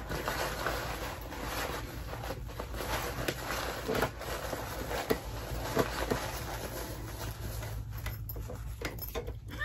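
Rustling and scraping of a fabric foldable backpack being folded up and stuffed back into its zip pouch by hand, with small irregular clicks and crinkles.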